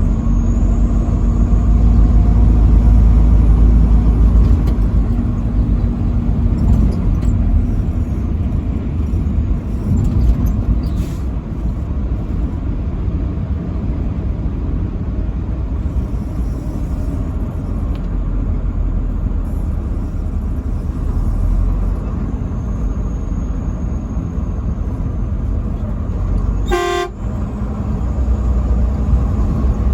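Steady road and engine rumble of a vehicle driving on the interstate, with a truck air horn blown: a held low tone over the first several seconds and a short blast about 27 seconds in.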